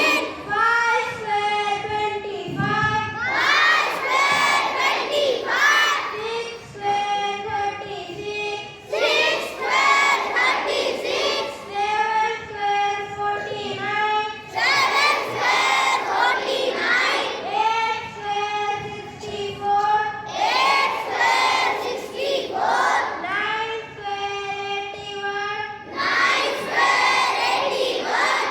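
A group of children singing together in unison, in phrases with long held notes.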